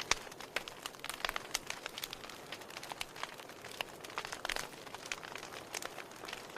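Wood fire crackling in a fireplace: irregular sharp pops and snaps over a soft steady hiss, with a louder cluster of pops about four and a half seconds in.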